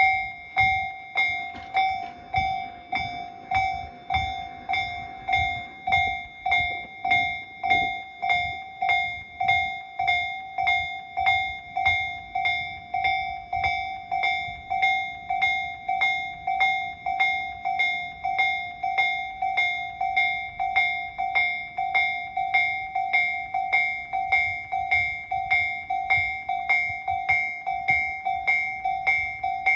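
Japanese level-crossing warning bell ringing steadily, a clanging tone repeated about twice a second, signalling that a train is approaching and the crossing is closed.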